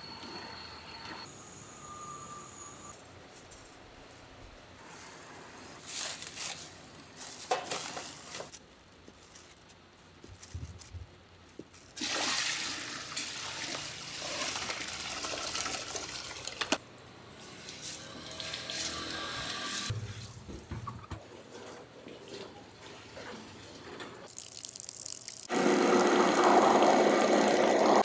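Liquid pouring and splashing: rice milk poured into a steel pot, then soaked rice and water tipped from a plastic pitcher into a steel bucket in a loud rushing pour about twelve seconds in. Near the end an electric rice grinder starts, running loud and steady as rice milk streams into a plastic bucket.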